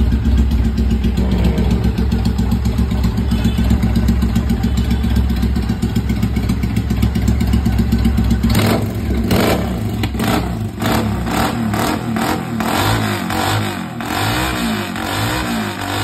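Triumph motorcycle engine running steadily, then revved in a series of throttle blips from about halfway, its pitch rising and falling with each one.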